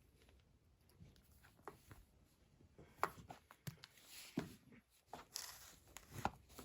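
Faint handling noises: scattered light clicks, taps and brief rustles as a smartphone and its packaging are handled, growing more frequent over the last few seconds.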